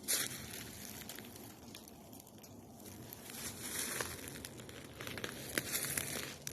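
Dry leaves and twigs crackling and rustling as someone pushes through brush on foot. There is a louder crackle right at the start, a quieter stretch in the middle, and scattered crackles picking up again in the second half.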